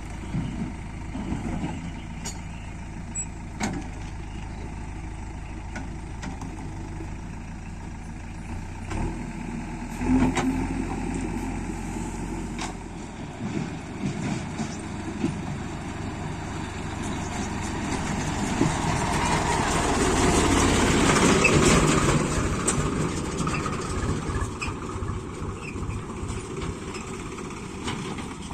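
Diesel engine of a JCB 3DX backhoe loader working while loading mud, with occasional knocks. About two-thirds of the way in the engine note rises and grows louder for a few seconds under load, then settles back.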